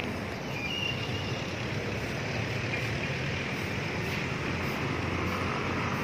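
Steady road traffic on a city street: a low, even rumble of passing cars.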